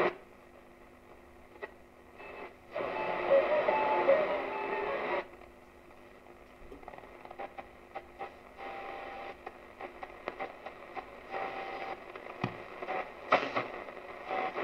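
Schaub-Lorenz Goldy 58 tube radio on shortwave being tuned across the band. Stations and static come and go as the knob turns, with whistling tones and crackles, and a loud burst of signal about three to five seconds in. The sharp AM IF makes stations pop in and drop out with the slightest turn of the tuning knob.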